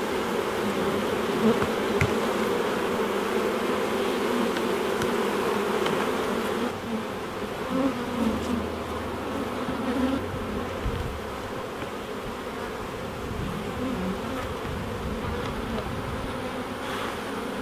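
Many honey bees buzzing in flight around an opened hive: a dense, steady hum.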